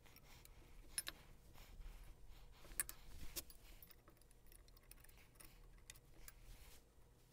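Faint, scattered clicks and taps of small metal parts being handled: pins being fitted by hand into a welded, powder-coated rudder pedal assembly. The sharpest clicks come about a second in and around three seconds in.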